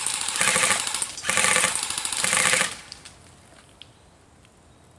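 Tripod-mounted airsoft gun firing full-auto in two long bursts of rapid rattling with a brief break between them, stopping about three seconds in.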